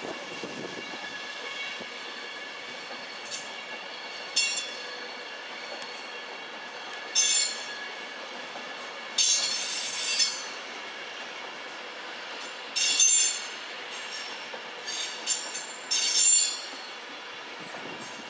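Virgin Trains Class 390 Pendolino electric train moving slowly through the station over a steady rumble, its wheels squealing in a series of short, high-pitched squeals. The longest squeal, about a second, comes around ten seconds in, and there is another cluster near the end.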